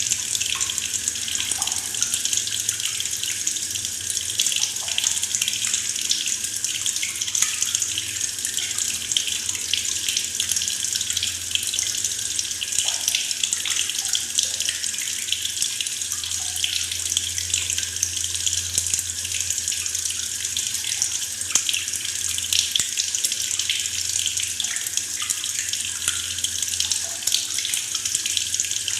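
Tap water pouring steadily into a plastic bucket, with a continuous gurgling splash of the stream hitting the water already in it.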